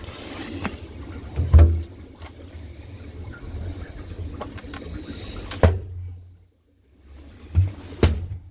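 Work boots stepping on and around a steel checker-plate manhole cover: a few heavy thuds and clanks, the loudest about a second and a half in and twice near the end, over a low rumble, with a brief lull a little after six seconds.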